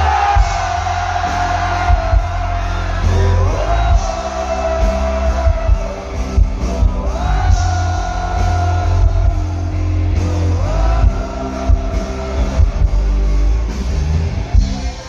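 A live rock band playing loudly through a big PA, with electric guitars over heavy bass. A lead melody slides up into a long held note every few seconds.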